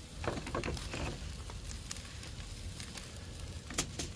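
Pork chops sizzling on the grate of a Weber kettle grill over the direct fire. Scattered crackles and clicks come mostly in the first second, with one sharper click near the end.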